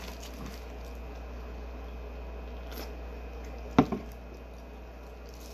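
Soft wet eating sounds over a steady low room hum, with one sharp knock about four seconds in.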